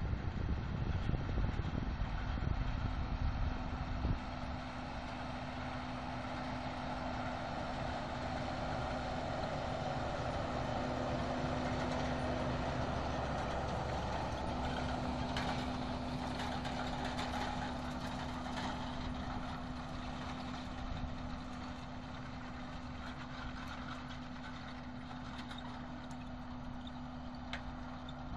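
John Deere 6930 tractor's six-cylinder diesel engine running steadily under load while pulling a rotary hay rake, with a constant hum. It grows louder as the tractor passes closest around the middle, then fades as it drives away, with a few light rattles after the pass. Wind buffets the microphone in the first few seconds.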